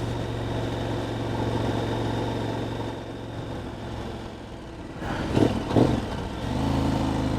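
KTM 1290 Super Adventure's V-twin engine running at low speed, a steady hum that eases off about halfway through and picks up again near the end.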